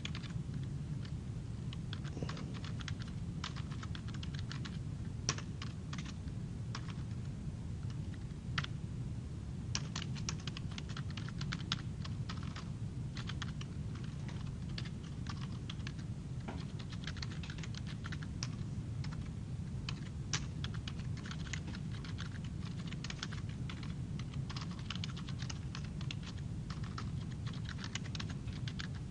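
Typing on a computer keyboard: irregular runs of key clicks with short pauses between, over a steady low hum.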